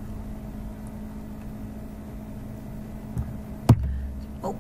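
Steady low electrical hum of room tone, with one sharp knock about three-quarters of the way through, followed by a brief low rumble.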